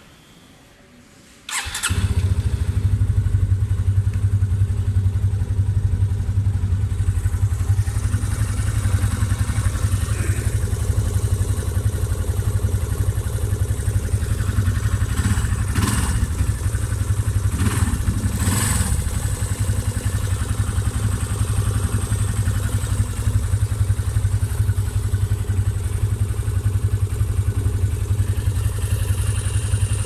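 Yamaha FZ25 single-cylinder engine starting about two seconds in and then idling steadily. A slight tappet (valve) ticking noise remains after a tappet adjustment, which the owner puts down to a manufacturing issue with this bike.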